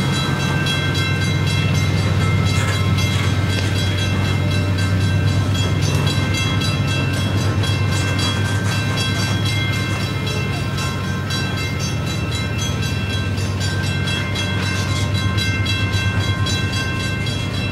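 Coal train's hopper cars rolling past at a crawl up a grade: a steady low rumble with scattered clicks from the wheels and couplers.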